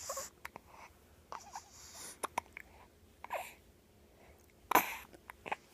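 Hiccups: a handful of short, sudden sounds with small clicks and breaths between them, the loudest one about three-quarters of the way through.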